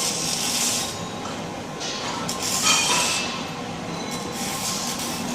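Workshop machinery noise around a robotic welding station: hissing that starts and stops several times, with a short metallic clink about two and a half seconds in, over a steady hum.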